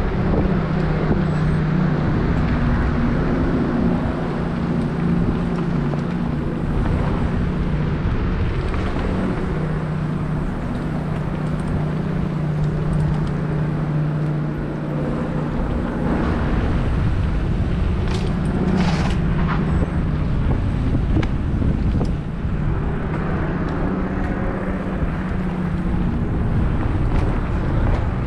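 Mountain bike riding down a dirt singletrack: steady tyre and ride noise with wind on the microphone, under a steady low buzz. A brief hiss comes about two-thirds of the way in.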